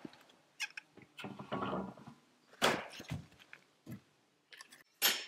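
A series of sharp knocks and taps at irregular intervals, the strongest about two and a half seconds in and near the end.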